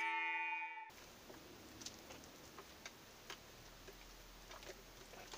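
Background music that cuts off about a second in. After it, faint quiet in a chicken coop, broken by a few scattered soft ticks and taps.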